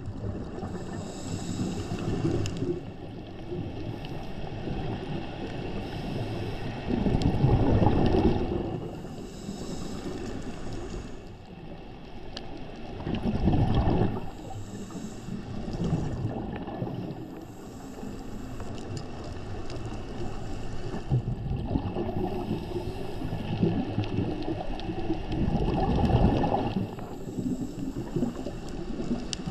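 Scuba diver breathing through a regulator, heard through an underwater camera housing: rushes of exhaled bubbles, loudest three times, between patches of higher hissing.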